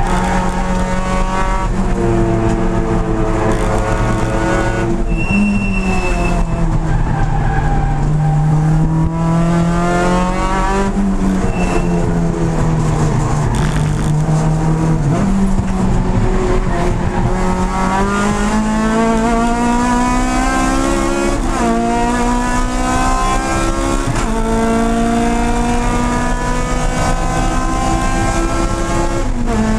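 Race car's engine at high revs heard from inside its stripped cabin. The pitch climbs through the gears, drops sharply at gear changes about five seconds in, about two-thirds of the way through and again just before the end, and sags lower through the middle. A brief tyre squeal comes about five seconds in.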